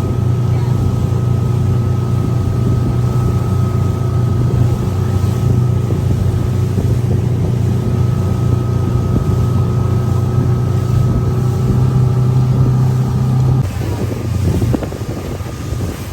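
Motorboat engine running at a steady pitch, its hum dropping away suddenly near the end, leaving rougher wind and water noise.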